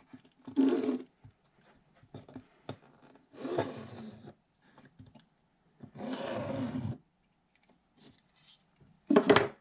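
A pen dragged along canvas fabric, tracing around a wooden frame: three scratchy strokes about a second long each with gaps between, then a louder, shorter rub or scrape near the end.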